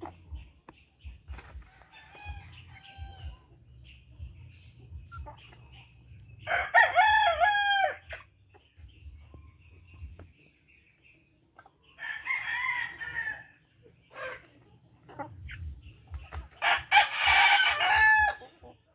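A rooster crowing three times, each crow about a second and a half long and about five seconds apart, over soft clucking from the feeding heritage chickens.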